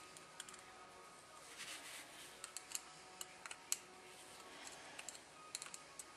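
Faint, irregular light clicks and taps of small steel revolver parts being handled and worked at the bench, about a dozen, the sharpest a little after the middle.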